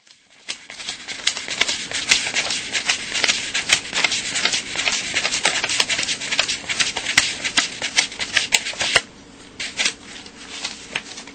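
US dollar bills being counted by hand, a fast run of crisp paper flicks and rustles as each note is thumbed over in a folded stack. It turns quieter and sparser about nine seconds in.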